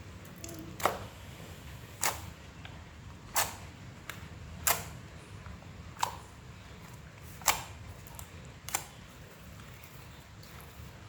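Milk slime being played with, making sharp air pops, seven of them, about one every second and a quarter. The pops stop a little over two seconds before the end.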